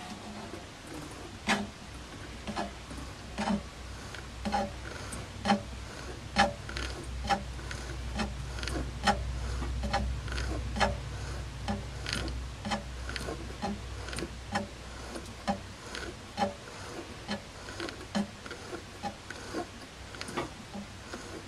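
Sieg C6 metal lathe turning its chuck slowly during a runout check, with a low motor hum that swells and eases in the middle, and a light click about once a second.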